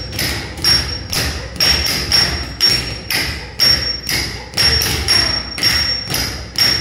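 Bare feet stamping flat on a tiled floor in unison, about two beats a second, the foot-striking of Bharatanatyam tatta adavu. Each beat lands as a sharp thud with a short ring.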